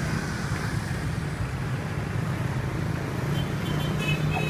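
City street traffic: motorbikes and cars running past in a steady low rumble.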